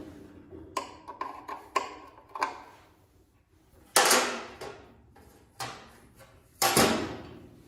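Metal tools and parts being handled during engine work: a series of light clicks and knocks, then two loud metallic bangs that each ring on briefly.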